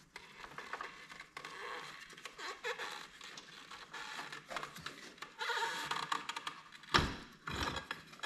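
Rubber CVT drive belt being walked off the edge of a Polaris Sportsman 500's secondary clutch by hand: faint scraping and rubbing of the belt on the clutch, with a couple of knocks near the end.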